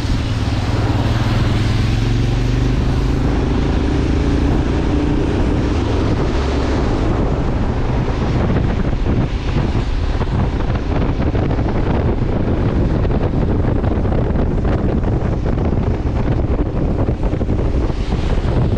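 Wind rushing over the microphone while riding a motorcycle, with the engine note rising slightly in pitch over the first few seconds. After that, mostly steady wind noise.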